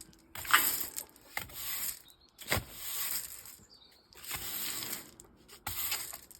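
A hand tool scraping over the ground in repeated strokes, about five, each under a second long, while chicken mess is cleaned up.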